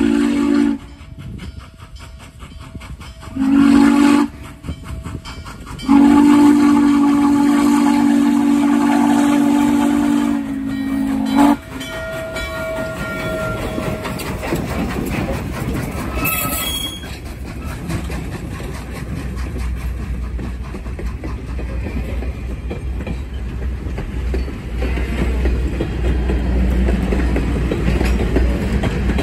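Norfolk and Western 611, a J-class 4-8-4 steam locomotive, sounding its whistle for a grade crossing, several notes together. The end of a long blast, a short blast about three seconds in, then a long blast of about five and a half seconds. The locomotive then passes close by, followed by passenger cars rolling past with a steady rumble and clicking of wheels on the rails.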